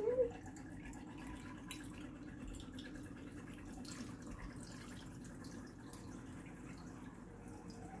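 Water pouring steadily from a plastic jug into a Catit cat water fountain's reservoir, a continuous trickle and splash.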